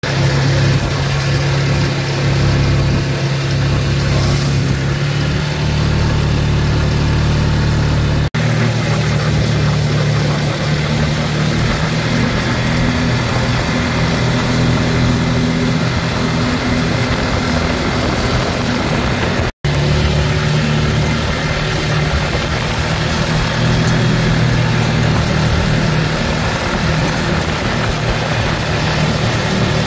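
Side-by-side utility vehicle's engine running steadily as it drives along a dirt trail, with tyre and wind noise. The sound cuts out for an instant twice, about 8 and 20 seconds in.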